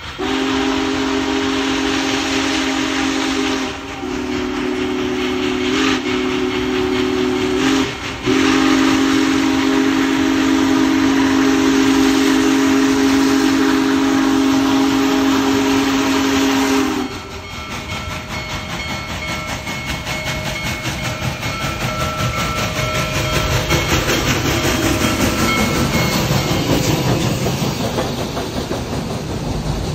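Union Pacific Big Boy 4-8-8-4 steam locomotive's chime whistle sounding for a grade crossing: a steady chord in several long blasts, the last held about nine seconds. Then the locomotive comes past close, hissing steam from its cylinders over a low rumble that grows louder near the end.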